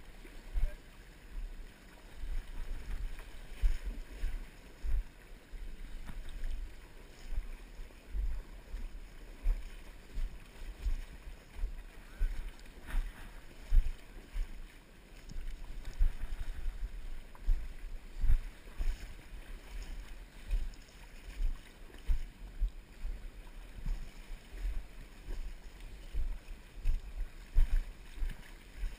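Uneven low rumble with irregular thumps: river water swirling around a wading angler's legs and wind buffeting the camera microphone.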